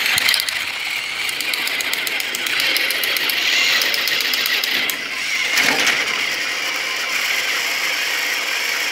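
Battery-powered toy train engine's small electric motor whirring steadily with a fast gear rattle while it pushes against a pile of other toy engines on plastic track.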